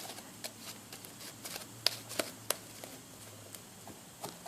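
Sticky slime being tapped and worked with fingers, giving irregular small clicks and pops as the fingers stick and pull free, with a few sharper snaps a little before the middle.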